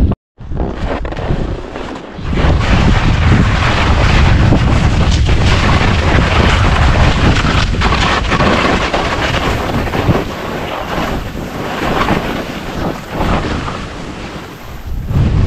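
Wind buffeting the microphone of a skier's body-mounted camera during a fast descent, over the hiss and scrape of skis carving through snow. The sound drops out for a moment right at the start.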